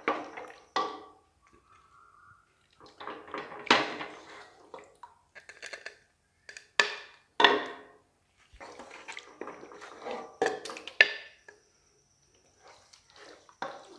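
Wooden spoon scooping stew out of a pressure cooker pot onto a ceramic plate: irregular knocks and scrapes of the spoon against the metal pot and the plate.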